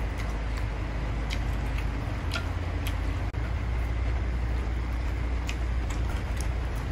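Someone eating instant noodles: short, scattered clicks and mouth sounds over a steady low hum.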